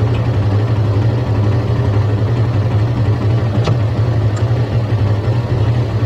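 Suzuki GSX-S150's single-cylinder engine idling steadily on its stock exhaust while the bike stands at a stop, with one short click a little past halfway.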